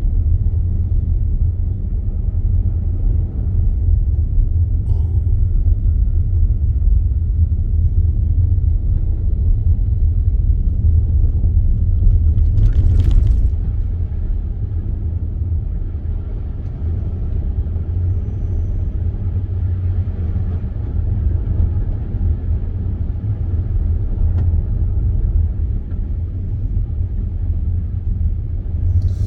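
Car driving on a snowy road: a steady low rumble of engine and tyres, with one brief swish about halfway through.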